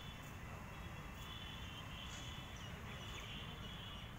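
Outdoor ambience: a steady low rumble with repeated high-pitched chirping calls over it.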